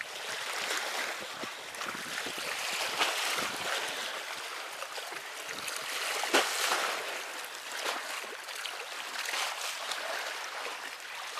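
Sea water washing and sloshing against breakwater rocks in an irregular wash, with a brief sharper hit about six seconds in.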